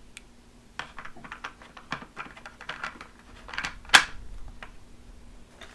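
Hard plastic toy parts clicking and clattering as a plastic pizza pan is fitted onto a Play-Doh toy cheese grater, with one sharp click about four seconds in.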